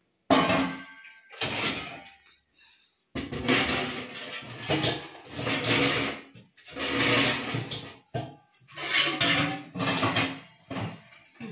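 Stainless steel pots and containers clanking and ringing as they are lifted and set down on a shelf, in a series of separate bursts of clatter.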